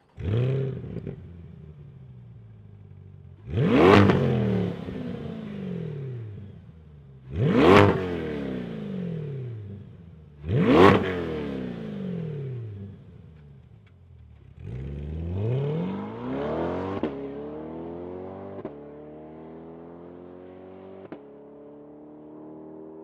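C8 Corvette's 6.2-litre V8 through its stock exhaust: it starts with a sudden flare, settles to a low idle and is revved sharply three times. It then pulls away, rising in pitch with a few sudden drops as it shifts up, and fades into the distance.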